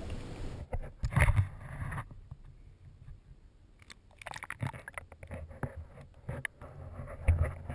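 Muffled underwater sound picked up by a submerged camera: water moving around it, with scattered crackles and knocks and louder thumps about a second in and again near the end.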